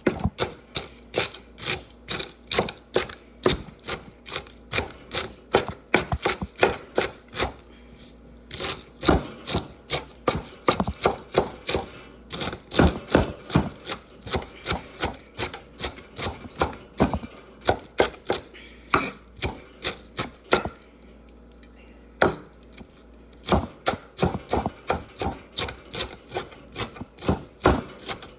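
Kitchen knife chopping vegetables on a wooden cutting board: a quick, steady run of knife strokes, about three a second, pausing briefly twice.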